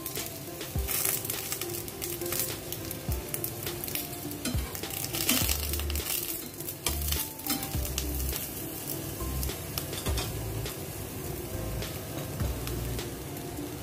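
Eggplant strips sizzling and crackling in hot oil in a frying pan, with scattered clicks as metal tongs turn the pieces against the pan.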